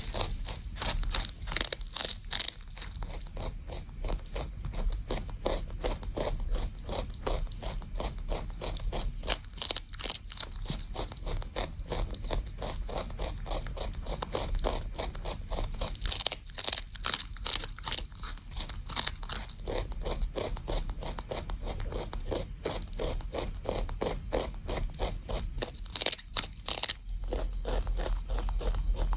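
A rabbit chewing celery: fast, steady crunching, with louder spells of crunching four times as it bites off fresh pieces of the stalk.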